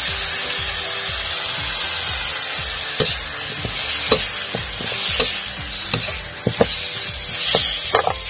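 Chunks of boiled pork leg sizzling in hot oil in a wok, stir-fried with a spatula. From about three seconds in, the spatula scrapes and knocks against the pan about once a second.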